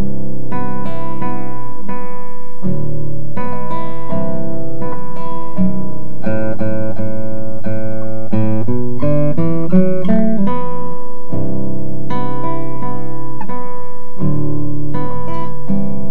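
Ten-string classical guitar played solo: plucked chords and arpeggios sounded on the bass strings, with a quicker run of single notes about halfway through.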